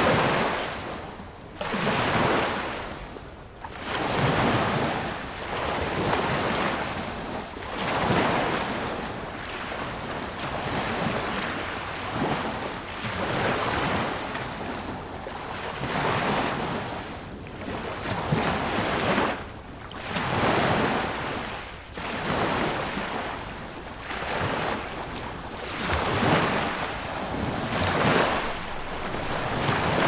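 Small waves washing in on a lakeshore, a rushing wash that swells and ebbs about every two to three seconds.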